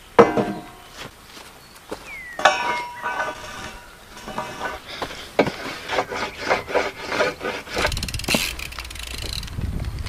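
A metal pipe rail knocks down onto a low wooden box with a ringing clank, and clanks again a couple of seconds later. Then come repeated rubbing strokes on the box's wooden edge, two to three a second, with a low rumble near the end.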